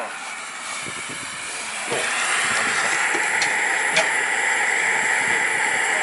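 A steady hiss that comes in about two seconds in and holds at an even level, with a couple of faint clicks.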